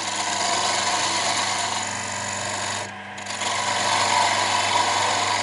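A lathe runs with a steady hum while a turning tool cuts into a spinning wooden sphere with a continuous scraping rasp. The cut breaks off briefly about three seconds in, then resumes louder.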